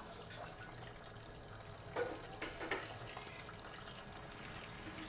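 Kitchen tap running water, with a few faint knocks about two seconds in.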